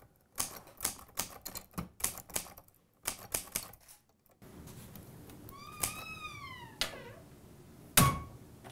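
Manual typewriter keys striking in an irregular run of sharp clacks for about four seconds. After a pause comes a short squeaky tone that rises and falls, then a couple of clicks and a heavy thump near the end.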